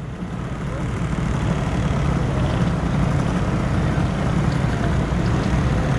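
Small 50cc scooter engines idling together, a steady low rumble.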